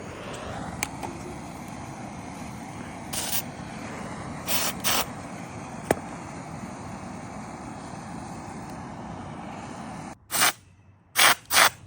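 Short hissing bursts from a spray gun being triggered, over a steady background noise: a few around the middle, then three louder bursts near the end after the background noise cuts off. Two sharp clicks come in between.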